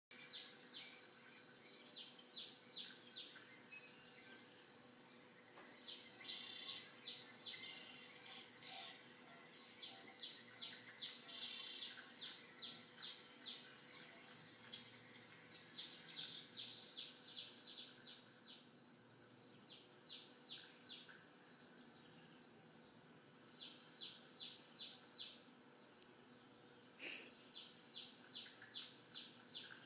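Birds chirping on a cat-entertainment DVD played through a tube television's speaker: runs of quick, repeated chirps, several to the second, broken by short pauses. A faint steady high tone lies beneath.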